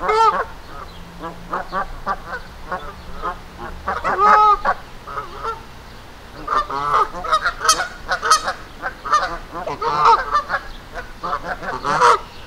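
Canada geese honking in short repeated calls, with a dense run of rapid honks a little past the middle and a loud one near the end: angry geese defending their ground.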